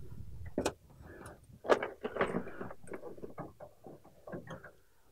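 Irregular clicks and light knocks, several a second, with a sharp click just over half a second in and a busier run of knocks around two seconds in.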